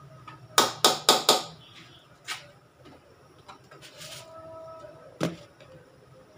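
Sharp clicks and knocks: four in quick succession about half a second in, then single knocks near two seconds and five seconds in.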